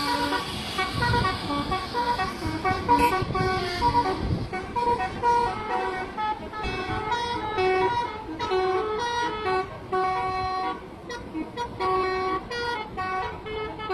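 Bus telolet horns playing quick melodic runs of short notes, one tune after another, over the low rumble of the buses.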